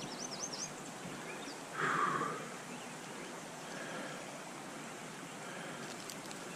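Steady rush of running stream water, with a few quick high bird chirps near the start and one short, louder burst of noise about two seconds in.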